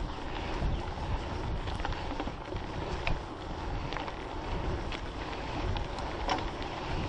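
Mountain bike rolling over a dirt trail: steady rumble and wind noise on the microphone, with a few sharp rattles, about three seconds in and again near six seconds.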